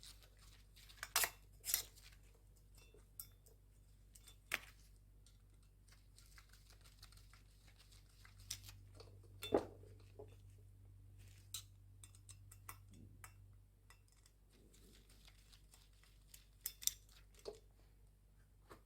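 Small hard parts and tools being handled: scattered clicks, taps and light knocks, the loudest about a second in, near halfway and near the end. Under them runs a faint low hum that stops about two-thirds of the way through.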